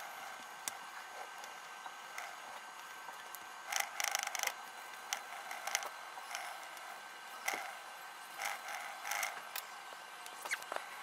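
Crayon scratching and rubbing on paper in short bursts of colouring strokes, with a few light clicks and taps between them.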